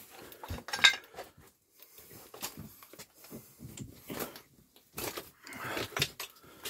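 Irregular crunches, scrapes and knocks of someone moving over rough, loose rock in a cramped mine passage, the loudest knock about a second in.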